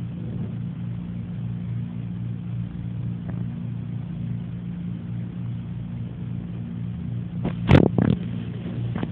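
Steady low machine hum with a slight regular pulsing. A few sharp knocks near the end, the loudest sounds here.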